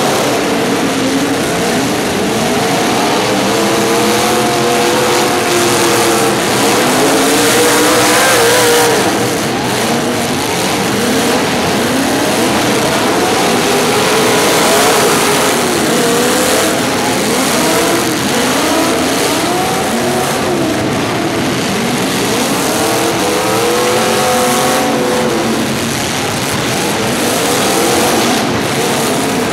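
Several car engines revving, their pitches rising and falling in overlapping waves throughout, as the cars are driven hard together.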